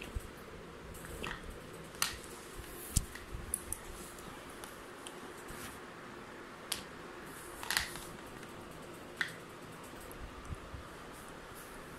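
A puppy chewing and biting on the red rubber tubes of a toning resistance band, giving scattered sharp clicks and snaps a second or more apart, over a faint steady hum.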